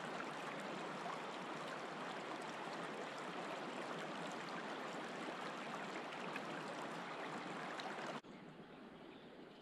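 Shallow river water rippling steadily over stones close by. It cuts off suddenly about eight seconds in, leaving a much quieter outdoor ambience.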